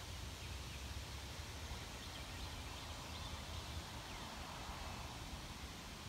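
Faint outdoor prairie background: a low uneven rumble of wind on the microphone under a steady hiss, with a few faint, high bird chirps in the middle.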